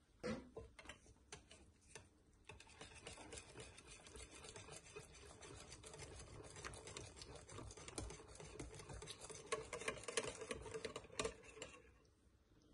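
Wire balloon whisk beating a batter in a glass mixing bowl: a few separate clicks at first, then fast continuous clicking and scraping of the wires against the glass, loudest shortly before it stops near the end.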